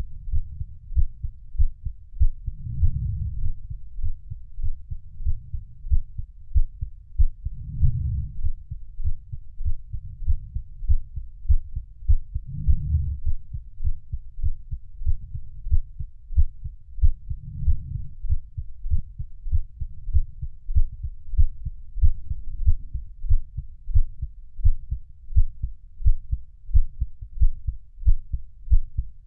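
A heartbeat beating steadily in a deep, muffled lub-dub rhythm, with a louder swell about every five seconds.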